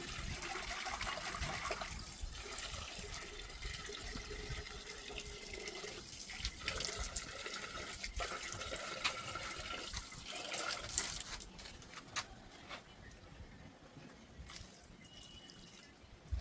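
Water running and splashing, with scattered small clicks, dying down about eleven seconds in.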